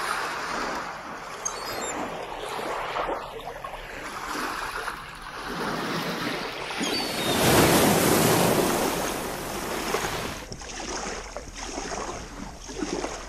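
Sea water washing and surging, loudest about halfway through, then paddle strokes and lapping water as a kayak is paddled across calm sea.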